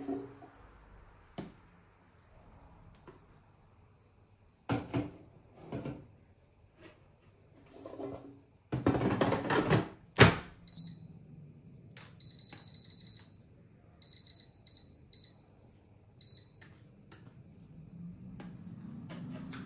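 Air fryer basket slid into place with a rattle, shutting with a sharp click, followed by a run of high electronic beeps from the air fryer's touch panel as it is set, one long and several short. Near the end the air fryer's fan starts with a low hum that swells up.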